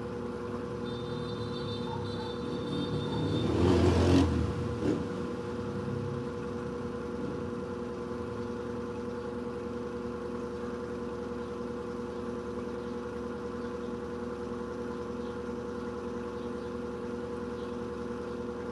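Electrolux LED14 washing machine on its spin cycle, running with a steady hum. About four seconds in a louder rushing swell with a deep thud rises and falls, followed by a single knock.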